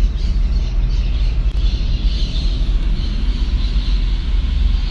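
Steady road noise of a car driving, heard from inside the cabin: a low engine and tyre rumble with a hiss above it.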